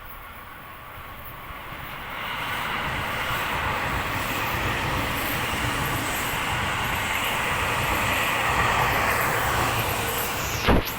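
Seibu Ikebukuro Line electric commuter train running by, its wheel and track noise swelling from about two seconds in and holding steady. A brief loud falling whoosh comes near the end.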